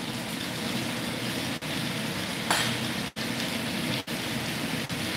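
Steady crackling sizzle of cooking, with the audio cutting out for an instant four times.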